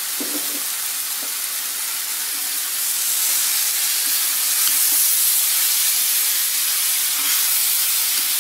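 Chopped raw mango sizzling in hot oil in an iron kadai as it is stirred with a steel spatula. The sizzle is a steady hiss that grows louder about three seconds in.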